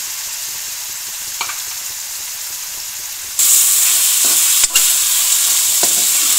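Raw chicken cubes sizzling in hot ghee in a pan, stirred with a steel spoon that scrapes and clicks against the metal. The sizzle jumps suddenly louder a little past three seconds in.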